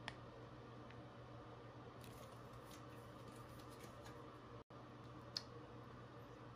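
Near silence: room tone with a steady low hum and a few faint clicks and crinkles from handling a foil skincare sachet and nose patch. The sharpest click comes about five seconds in.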